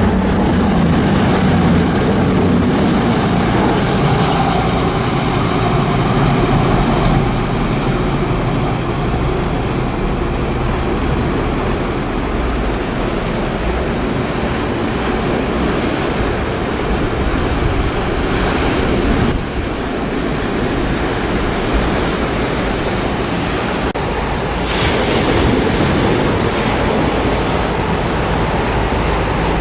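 Sea waves surging against the sea wall with steady wind on the microphone. A low rumble fades over the first several seconds.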